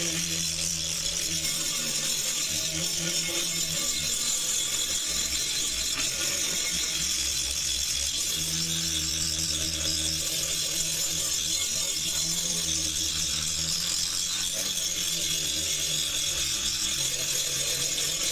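Nova angle grinder with an abrasive disc grinding rust off a steel shovel blade: a steady high-pitched grinding hiss over a lower motor hum that swells and fades as the disc is worked across the metal.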